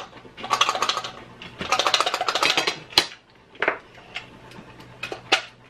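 Crunching of buttered toast being bitten and chewed, in two crisp crackling bursts over the first three seconds, then a sharp click and a few scattered taps.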